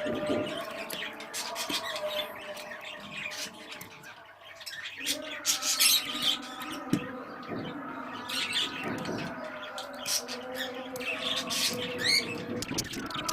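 Caged pet birds chirping and squawking, with short clicks of a knife cutting beetroot on a board.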